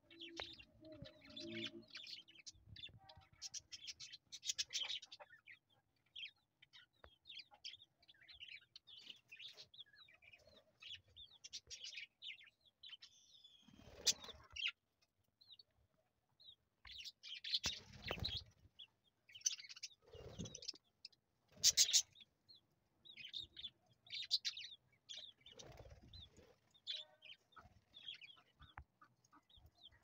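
Budgerigars chirping and chattering in many short, high calls, with a few louder thumps and rustles among them.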